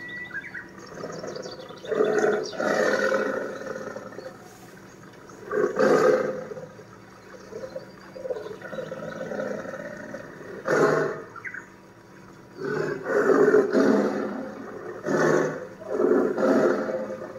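Tigers roaring and growling: a series of loud roars a few seconds apart, with quieter growling between.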